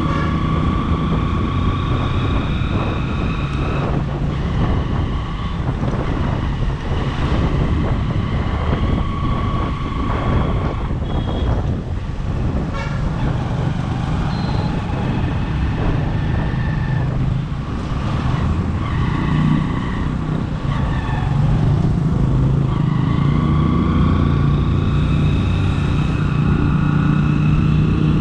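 Motorcycle engine running on the move, its pitch rising and falling as the throttle changes.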